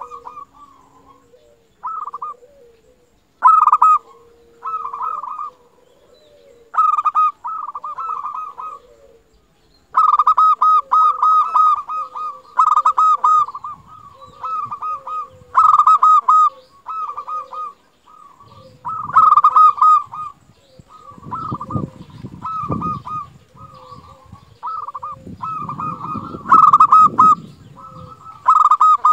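Local zebra dove (perkutut) singing: phrase after phrase of rapid, rolling coos, separated by short pauses, with a lower coo running beneath. A low rumbling noise comes in under the song twice in the second half.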